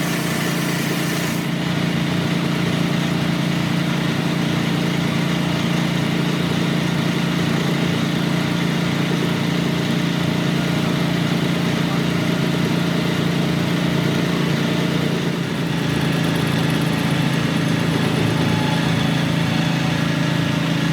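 A machine's motor or engine running steadily with a low, even hum, dipping briefly about fifteen seconds in.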